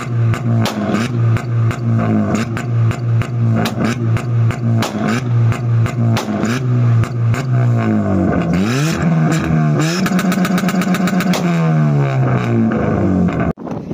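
Car engine held at a rev limiter, its exhaust banging about four times a second and shooting flame as unburnt fuel ignites in the pipe. About eight seconds in the revs drop and climb again, then the bangs come much faster before the revs fall away.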